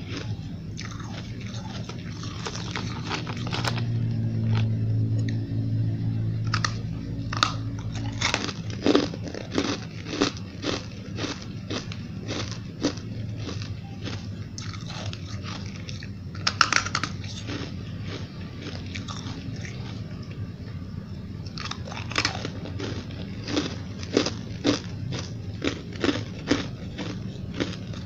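Close-miked biting and chewing of frozen white ice chunks: many sharp, brittle crunches in quick runs, with short pauses between mouthfuls.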